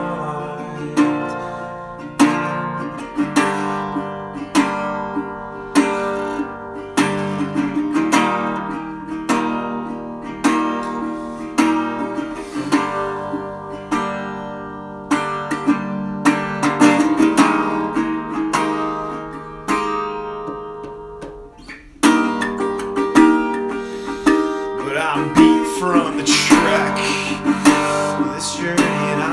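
Acoustic guitar instrumental break: picked notes and chords struck about once a second and left to ring. A little past two-thirds through, the playing fades briefly, then comes back in suddenly and fuller.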